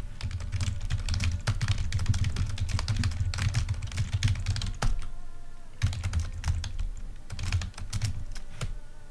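Typing on a computer keyboard: fast runs of key clicks, with a short pause about five seconds in before the typing resumes.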